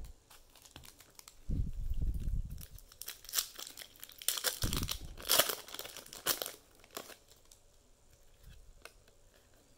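A trading card pack's wrapper being torn open and crinkled in the hands, with dull handling thumps about a second and a half in and crackling mostly between three and seven seconds in.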